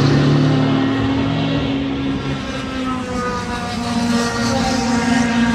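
Race car engine running hard on the circuit at high revs, its note dipping about halfway through and then climbing again as the revs rise.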